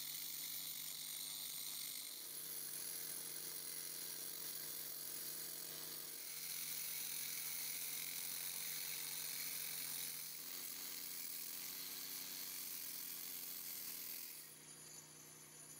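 Cordless angle grinder with a diamond blade cutting a shallow groove into a concrete floor: a steady motor whine with the hiss of the blade grinding through concrete. About fourteen seconds in the cutting noise drops away, leaving a quieter hum.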